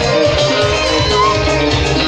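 Loud dance music with guitar over a steady, pulsing bass beat.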